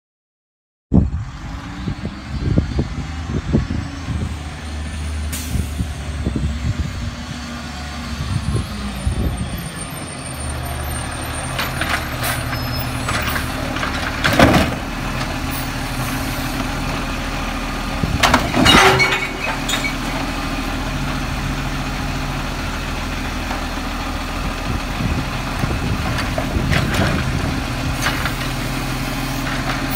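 Mack MR McNeilus AutoReach side-loader garbage truck's diesel engine running steadily while its automated arm empties a recycling cart. Air hisses and clanks are heard, with two loud bangs about halfway through as the cart is handled.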